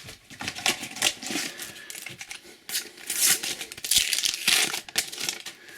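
Paper-and-foil sticker packet crinkling and tearing as it is opened by hand, in several rustling bursts with a couple of small clicks.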